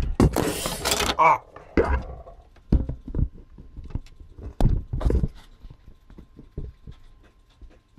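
Aluminium radiator with its fans attached clattering and knocking on a wooden desk during a small mishap while it is handled. A noisy clatter comes about half a second in, then scattered knocks and taps that thin out toward the end.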